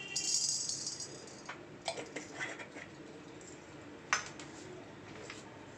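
Dry black peppercorns rattling and skittering in an empty, dry-heated kadai for about the first second. A few light clicks and clinks follow, the sharpest about four seconds in.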